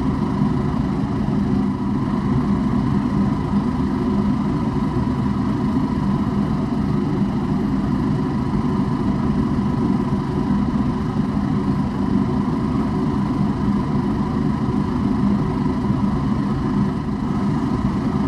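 A steady, unchanging machine hum with a faint constant high tone.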